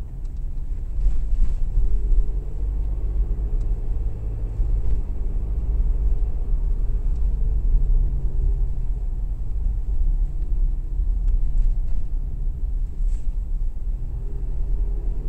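Car engine and tyre rumble heard from inside the cabin while driving along a street, a steady low drone with an engine tone that rises and falls slightly with speed.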